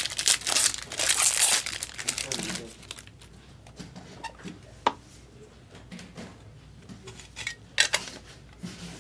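Foil trading-card pack being torn open and crinkled, a loud crackling rustle for the first three seconds. After that, quieter handling with a couple of sharp clicks.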